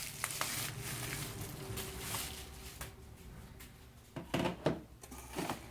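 Handling noise from unboxing laptop accessories: packaging rustles and small clicks and taps, with a few louder knocks about four seconds in.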